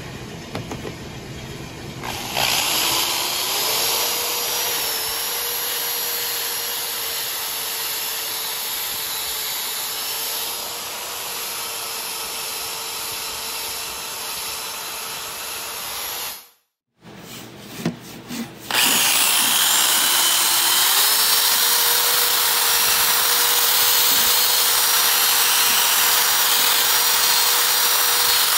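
Small electric rotary tool with a sanding disc spinning up and running steadily while sanding rust off a steel double-bit axe head. Just past halfway it stops dead, a few clicks follow, then a power tool spins up again and runs steadily.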